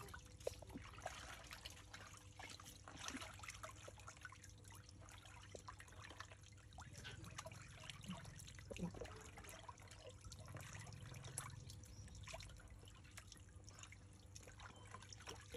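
Faint splashing and trickling of water as a hand works in a tub of water, rinsing small freshwater fish, with scattered small splashes and clicks.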